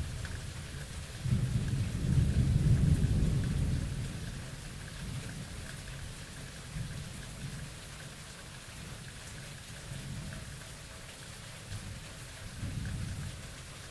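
Thunderstorm: a steady hiss of rain, with a deep roll of thunder that swells about a second in, holds for a couple of seconds and fades away. A smaller rumble of thunder comes near the end.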